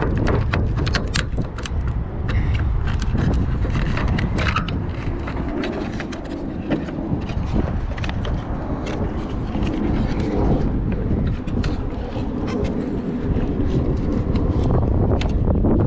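Scattered clicks and scrapes of hands working the door-handle linkage, clips and tab inside a truck door, densest in the first few seconds, over a steady low rumble of wind on the microphone.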